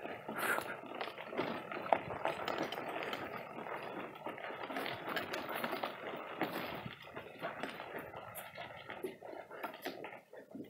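Gravel crunching steadily under movement across a gravel drive, with many small irregular clicks, growing quieter near the end.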